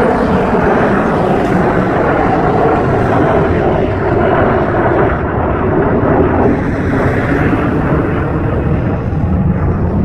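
Jet airliner climbing out after takeoff, its twin jet engines giving a loud, steady rumble. The highest hiss thins out about halfway through as the plane draws away.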